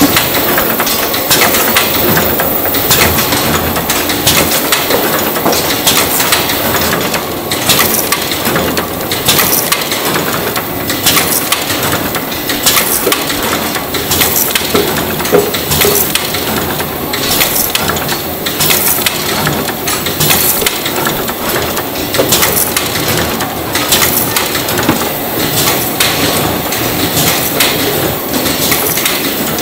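Food production-line machinery running: a steady mechanical din with frequent, irregular sharp clicks and clattering knocks from the conveyors and their fittings.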